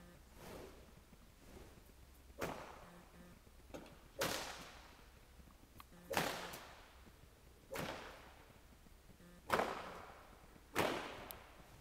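A whip swung from horseback, cracking six times at intervals of about one and a half to two seconds, each crack sharp and echoing off the walls of a metal-clad arena.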